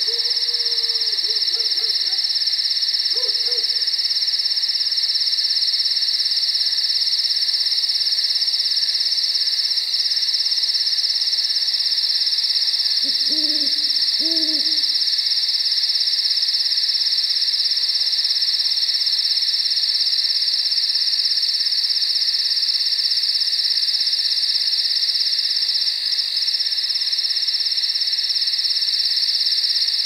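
Countryside night ambience: a steady high-pitched chorus of night insects, with an owl hooting a few times in the first seconds and again about halfway through.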